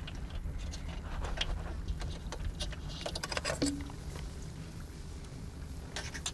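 Scattered light clicks and taps of plastic cable connectors and a cable guard being handled, over a steady low rumble. There is a cluster of quick clicks a little past the middle and another near the end.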